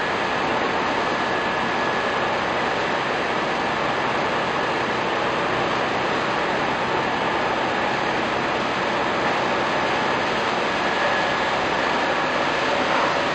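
An agglomerator running: a steady, loud mechanical din with a faint high whine held through it.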